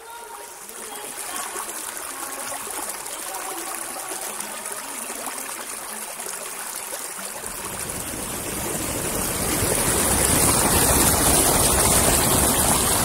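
Running water rushing over rocks in a stream cascade. About seven seconds in it grows louder and deeper, becoming the heavier, steady rush of a waterfall.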